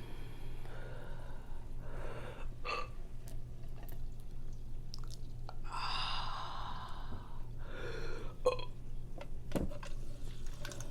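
A person's breathy mouth sounds while eating and drinking: several short gasps and exhales, the longest about six seconds in, with a few sharp mouth clicks over a steady low hum.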